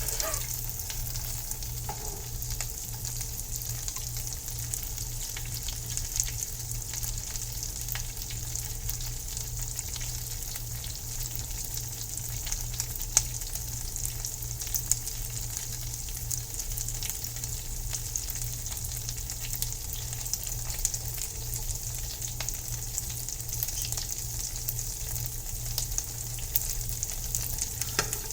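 Butter sizzling and crackling in a frying pan under flour-tortilla quesadillas as they crisp. It is a steady hiss full of tiny pops, with two louder pops about halfway through, over a steady low hum.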